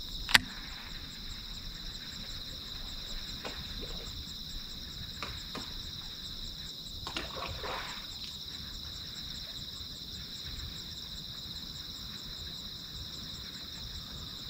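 Catfish feeding at the water surface, with a few short splashes, the clearest of them a little after the middle. This is heard over a steady high-pitched insect chorus. A single sharp click about half a second in is the loudest sound.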